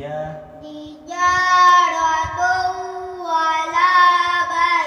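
A child reciting the Quran aloud in a melodic chant, drawing out long held notes after a short pause about a second in.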